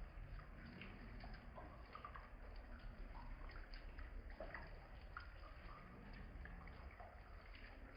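Faint rain, slowed down: scattered, irregular drips and plinks over a steady low rumble.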